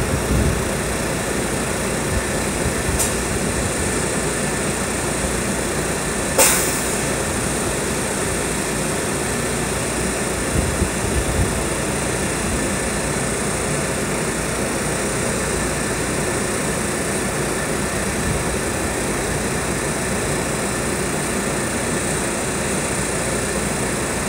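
SEPTA electric multiple-unit railcar standing at the platform with its pantograph raised, its onboard equipment and ventilation blowers running steadily. A sharp click about six seconds in, and a fainter one about three seconds in.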